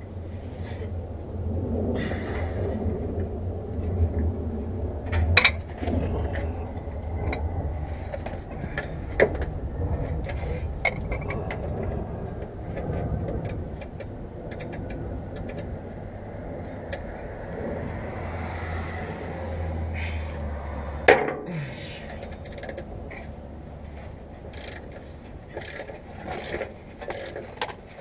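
Hand-tool work on a car underside: scattered metal clicks and knocks, two of them sharper, over a steady low hum that cuts off suddenly about 21 seconds in.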